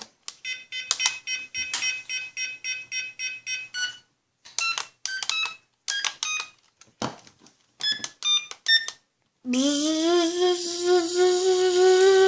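Toy remote-control helicopter and its remote: several runs of quick electronic beeps. About nine and a half seconds in, the small rotor motor starts with a whine that rises in pitch as it spins up, then runs steadily.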